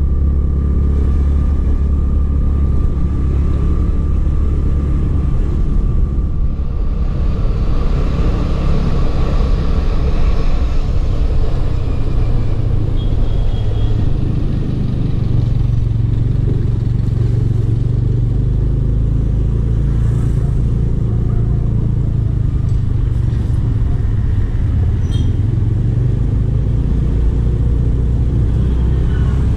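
Steady low rumble of a moving vehicle that carries the camera: engine running with wind on the microphone. A faint high whine sits over it for the first ten seconds, and it swells slightly around the middle.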